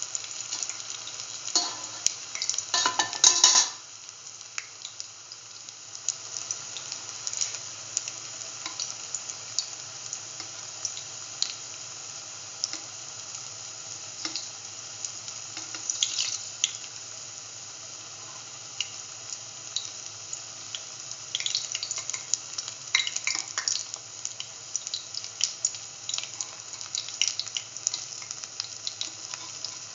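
Split chickpea fritters sizzling and crackling in hot oil in a pan, a steady hiss broken by scattered sharp pops. About two to three seconds in there is a short, loud clatter, and around twenty-two seconds the crackling grows denser.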